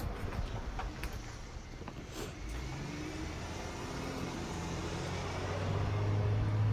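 A car driving past, its low engine hum growing louder over the second half.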